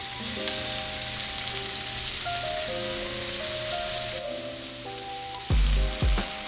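Hogfish fillet sizzling in hot oil in a nonstick frying pan, a steady frying hiss just after the fish goes in. Background music with a melody plays over it, with two heavy bass hits near the end.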